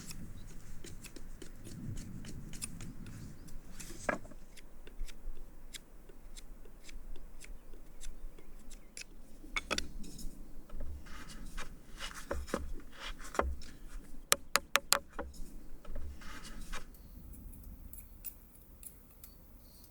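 Snips, clicks and scraping of thin sticks being cut and worked for a woven stick basket, with a quick run of about half a dozen sharp clicks in the last third.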